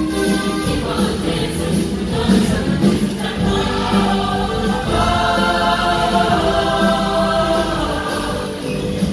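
Large mixed choir of young men and women singing together, with a long held chord about halfway through.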